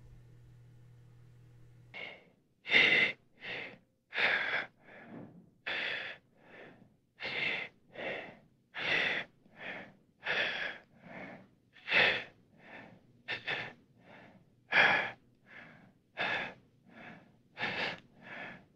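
Laboured, gasping breathing. About two dozen quick breaths start roughly two seconds in, in and out at a steady pace, alternating louder and softer.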